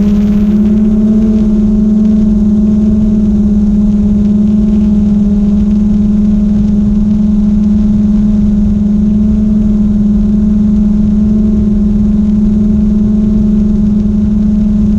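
GoPro Karma quadcopter's motors and propellers humming at a steady pitch, with a low rumble of wind buffeting the microphone.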